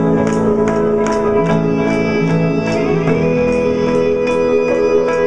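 Live rock band music: held keyboard and guitar chords that shift every second and a half or so, over a steady high tick about two and a half times a second.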